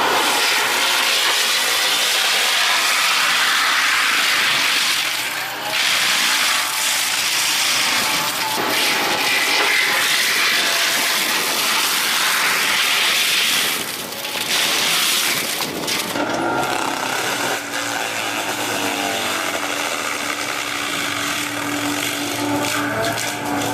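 Heavy forestry machinery working on trees: a loud, harsh mechanical noise with two brief dips, then from about sixteen seconds in a machine engine running steadily with a low hum.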